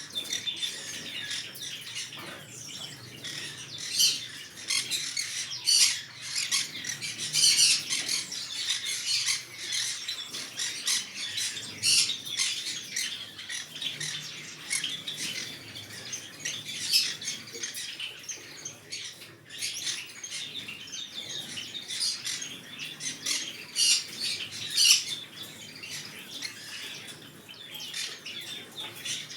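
Green-cheeked conure chattering: a constant run of short, shrill chirps and squawks, with louder squawks scattered through.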